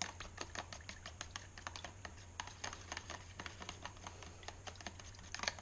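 Twisted-wire stir stick clicking against the sides of a plastic tub while stirring a thin oily liquid finish: quick, irregular light clicks, several a second, a little louder near the end.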